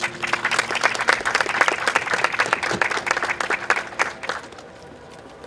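Audience applauding at the end of a song: a burst of clapping that starts suddenly and dies away after about four seconds.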